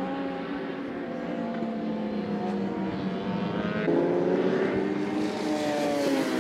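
Inline-four superbike engines running on the circuit, a steady drone of several tones. About four seconds in it jumps louder and higher, then the pitch eases down near the end as the bike slows.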